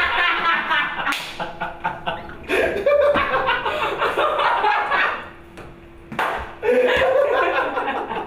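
People laughing loudly, with high-pitched shrieks of laughter coming in several bursts and a lull just past the middle.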